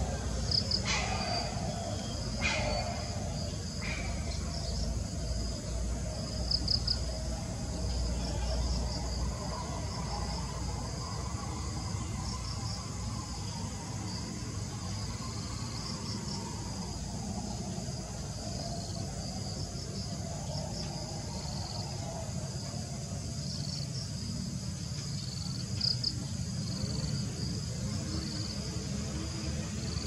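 Insects chirping in quick repeated high pulses over a low steady rumble, with a few short sharp sounds in the first four seconds.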